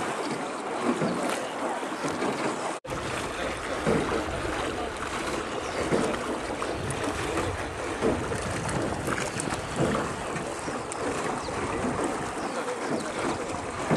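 Water splashing and lapping around a small rowboat on a river, with short louder splashes every second or two and wind on the microphone. The sound drops out for an instant about three seconds in.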